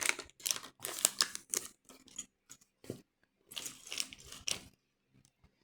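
Crinkly plastic LEGO parts bag being opened and handled, the pieces shifting inside, in a few crackling bursts with a pause in the middle.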